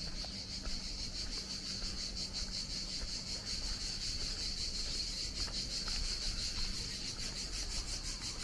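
Insects chirring steadily: a continuous high buzz made of rapid, even pulses, with a low rumble underneath.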